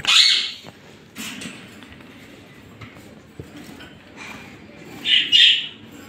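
Lovebirds giving harsh, screechy squawks: one right at the start, a short one about a second in, and two loud ones close together about five seconds in.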